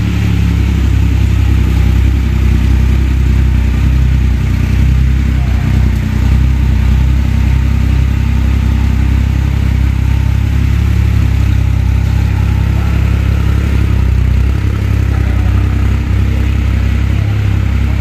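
Triumph Rocket 3 GT's 2,500 cc three-cylinder engine idling, loud and steady with an even pitch.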